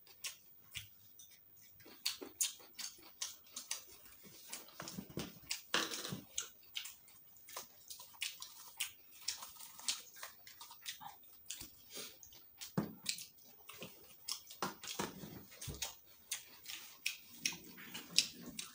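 Several people chewing and smacking their lips while eating sticky rice, fried boiled eggs and starfruit salad by hand. The result is a steady run of irregular, sharp mouth clicks and smacks.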